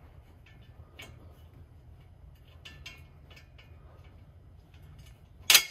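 Light metallic clicks and ticks of an exhaust pipe flange, gasket and bolts being fitted together by hand, then one sharp metal clank near the end, over a low steady hum.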